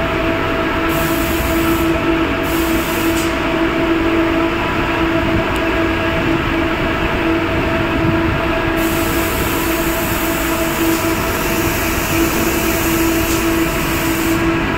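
Steady, loud machinery drone with a constant hum, from spray-painting and air equipment running in an enclosed steel compartment. A high hiss cuts in and out several times, as of a spray gun being triggered.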